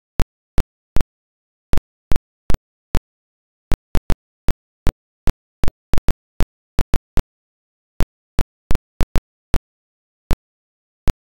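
Dead silence broken by irregular sharp clicks, roughly two to four a second, with nothing audible between them.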